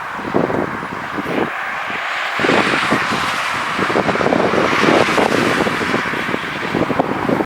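Jet airliner engine noise, a steady rushing that grows louder a couple of seconds in, with wind buffeting the microphone.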